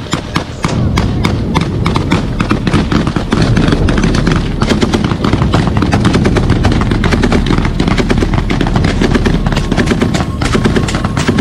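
Heavy, continuous close-range gunfire: rapid bursts from a belt-fed machine gun with other shots mixed in, many shots a second. It thickens and grows louder about half a second in.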